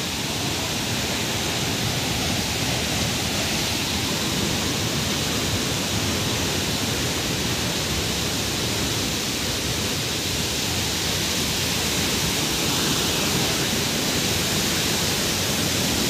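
Steady, unbroken rush of water, the noise of a waterfall and water running over rock and steps.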